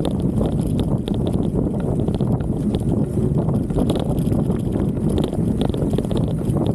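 Mountain bike riding over a rough grass trail: a dense low rumble with irregular rattling ticks throughout, plus wind on the microphone. The rattle is the handlebar-mounted action camera shaking in its loose mount.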